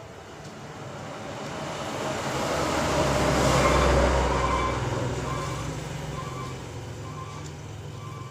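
A motor vehicle passing by, its noise growing to a peak about halfway through and then fading away.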